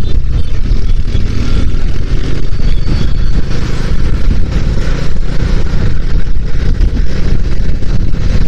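Bajaj Dominar motorcycle under way in traffic: a loud, steady low rumble of wind and engine on the handlebar-mounted microphone.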